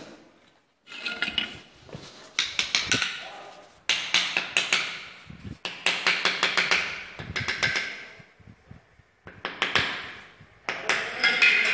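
Bursts of quick, sharp taps on porcelain floor tiles being set in a doorway threshold strip, each run of several rapid strikes followed by a short pause, about eight runs in all.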